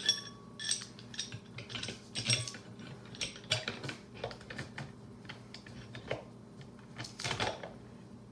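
Scattered small clicks, taps and knocks of hard plastic and metal parts being handled as a PVC tumbler-turner arm is turned around on its threaded rod, over a faint steady hum.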